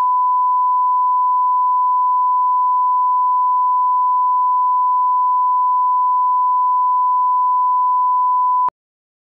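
Television test tone played with colour bars: a loud, steady, pure beep held at one pitch that cuts off suddenly near the end.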